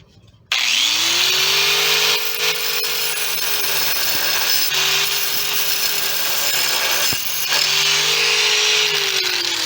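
Angle grinder spinning up about half a second in, then cutting through a rusted broken truck-bed bolt: a steady grinding hiss over the motor's whine, which dips a few times as the wheel bites and sags near the end.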